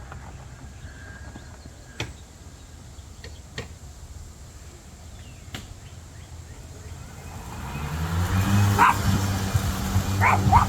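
A dog barking several short times in the last two seconds or so. Under the barks, a low steady hum grows louder from about seven seconds in, likely the battery riding mower's electric motor.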